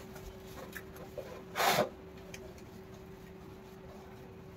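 Hands rubbing shampoo lather into a wet Shih Tzu's long coat: soft, faint wet rubbing, with one short louder swish about one and a half seconds in. A faint steady hum runs underneath.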